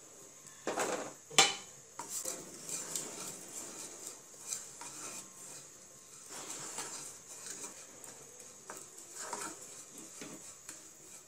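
Wooden spatula stirring and scraping sugar around a speckled nonstick saucepan, with two sharper knocks against the pan about a second in. The sugar is starting to melt for caramel.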